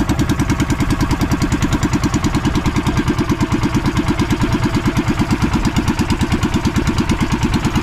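Small inboard engine of a motorized fishing banca running steadily under way, with an even, rapid pulse.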